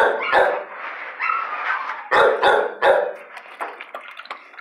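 Dogs barking, with a cluster of sharp, echoing barks near the start and another about two seconds in, and quieter barking between.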